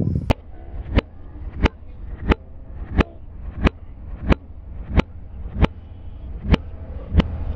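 Sharp ticking clicks at an even pace, about three every two seconds, over a low steady rumble of wind on the microphone.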